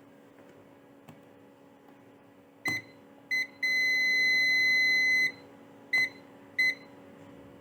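High electronic beeps in an uneven pattern: two short beeps, one long beep of nearly two seconds, then two more short beeps.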